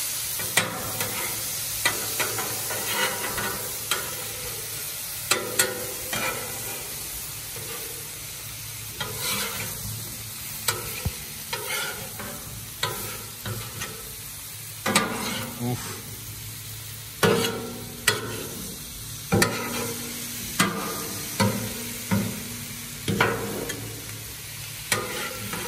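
Vegetables frying with a steady sizzle on a Blackstone 36-inch flat-top griddle, while two metal spatulas toss them, scraping and clinking on the steel cooktop. The clicks and scrapes come more often in the second half.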